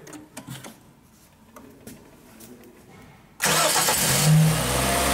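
A rebuilt Hyundai/Kia G4KD 2.0-litre four-cylinder petrol engine, its block freshly sleeved and fitted with new pistons, is started after a few seconds of near-quiet with faint clicks. It catches suddenly about three and a half seconds in, revs up briefly and settles into a steady idle with no knocking.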